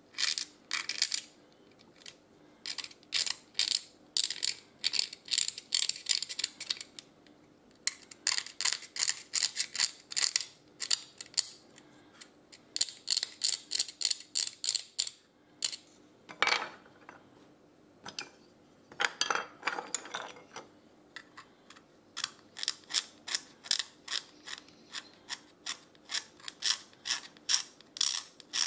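Small hand-held carving blade scraping a tagua nut (vegetable ivory): runs of short, dry scraping strokes, about three to four a second, broken by brief pauses, with a couple of longer, lower scrapes midway.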